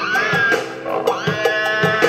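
Background music from an upbeat children's nursery-rhyme song: a steady beat of about two hits a second under a held, slightly wavering melody line.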